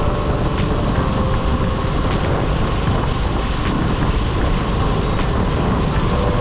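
Steady low rumble of road and wind noise from a vehicle moving along a street, with faint tones of engines running beneath it.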